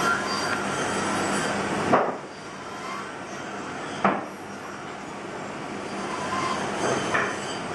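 Knife whittling a wooden Dala horse blank: the blade scrapes steadily through the wood, with sharp clicks about two seconds in and four seconds in and a lighter one near the end.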